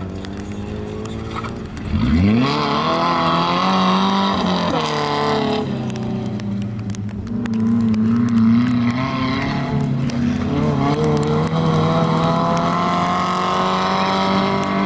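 Off-road racing 4x4's engine revving hard: its pitch climbs sharply about two seconds in, then stays at high revs with small rises and falls.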